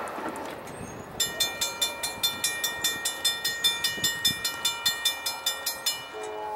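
Railroad grade-crossing bell ringing in fast, even strikes, about five a second, over the fading rumble of a train that has just passed. The bell starts about a second in and stops near the end, as the crossing gates lift after the train has cleared.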